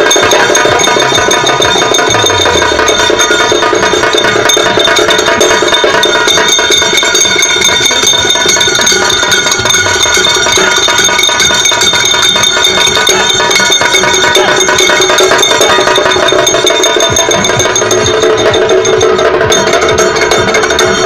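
Karadi majalu drum troupe playing: large barrel drums (karadi) beaten with sticks in dense, continuous strokes, with ringing from large hand cymbals held steadily over them.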